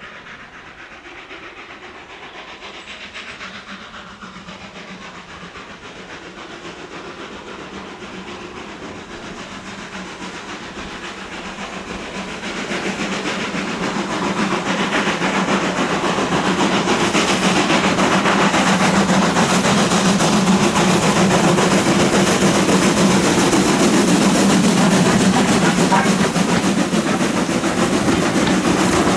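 Steam train running on the line, with steam hiss and rail noise, growing louder about halfway through and then staying loud and steady.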